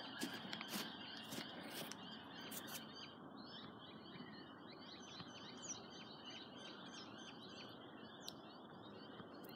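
Faint birdsong: many short, high chirps from small birds repeating over a steady outdoor background hiss, with a few faint knocks in the first two seconds.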